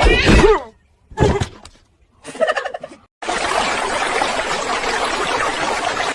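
An animal's loud, warbling call, followed by two shorter calls; then, about three seconds in, a steady hiss sets in and carries on.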